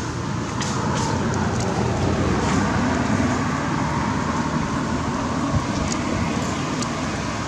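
Steady road-traffic noise, the rumble of motor vehicles on the road, with a few faint high ticks.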